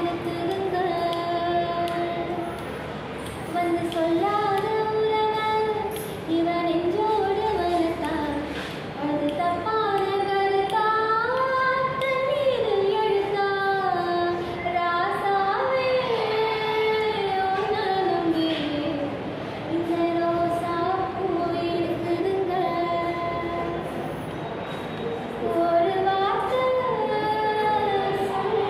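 A girl singing solo without accompaniment: a slow melody of long held notes that glide up and down between phrases.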